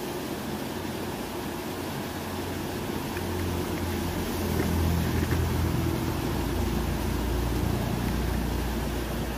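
Shallow stream water rushing steadily over stones, with a low rumble that swells from about three seconds in and holds to the end.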